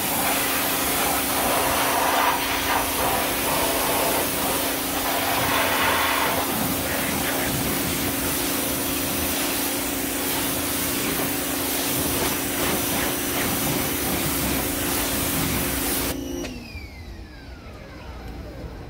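Giraffe Tools Grand Falls 2200 PSI electric pressure washer running with a steady hum while the wand sprays a hard hissing jet of water onto a car wheel. About sixteen seconds in, the spray and the hum stop suddenly and leave a falling whine as the motor winds down.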